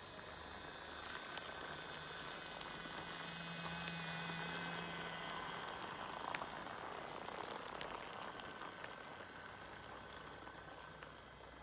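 Battery-powered wooden toy train (Imaginarium N700 Shinkansen) running on plastic track: a steady whir of its small electric motor and rattle of its wheels, growing louder to a peak about four seconds in and then fading, with one sharp click a little after the middle.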